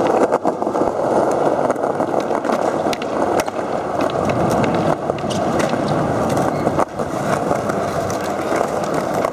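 Skateboard wheels rolling over pavement, a steady rumble with a few sharp clacks of the board now and then.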